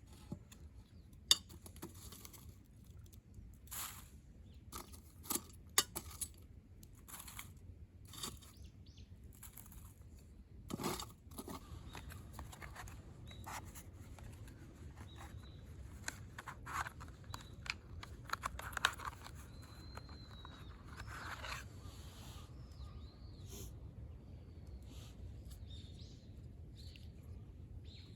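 Scattered light clicks, knocks and short crunches, most of them in the first half, then a few faint bird chirps later on.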